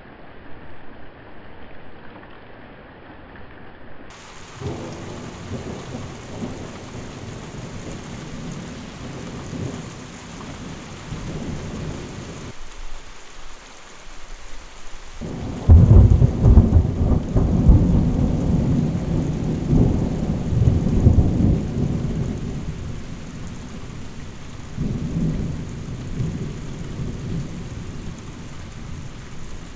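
Thunderstorm: steady rain with rolling thunder. About sixteen seconds in, a loud thunderclap breaks and rumbles on for several seconds, followed by a smaller rumble near the end.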